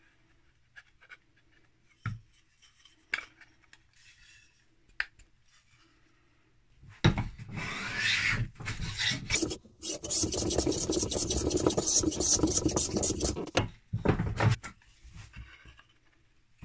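Metal hand plane shaving along a wooden strip in two long strokes, about seven and ten seconds in, the second one longer. Before them there are only a few faint clicks, and a couple of short scrapes follow.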